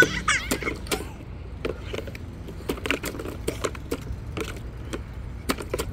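Irregular light taps, knocks and small splashes from small hands patting water and plastic toys knocking on a plastic water table, with a brief high child's voice right at the start.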